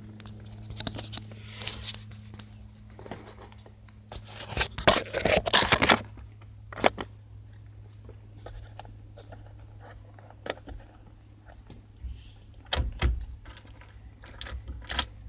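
Hand work with a screwdriver on the plastic steering-column and dash trim of a 1987 Mazda RX-7: scattered clicks, scrapes and knocks, with a burst of rattling about five seconds in and a sharp knock about thirteen seconds in. A steady low hum runs underneath.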